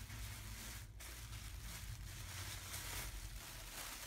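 Tissue paper and plastic packaging rustling and crinkling as hands dig through a shipping box, with a brief pause about a second in.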